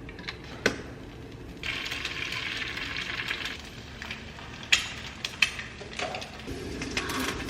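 Food sizzling in a frying pan, the hiss rising for about two seconds, with several sharp clinks of a utensil against the pan.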